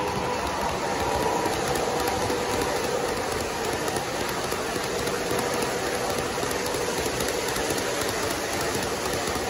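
Model train running past: hopper cars rolling along the track with a steady rumble and clatter of wheels on rails.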